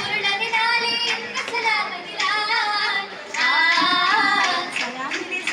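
A group of girls singing an Oppana song in chorus, with hand claps cutting through the melody.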